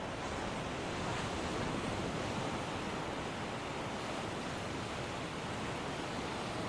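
Sea surf washing onto a beach: a steady rushing noise that swells a little about a second in.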